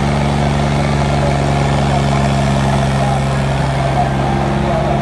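John Deere tractor engine running under load in a tochan tractor tug-of-war, its revs held steady throughout.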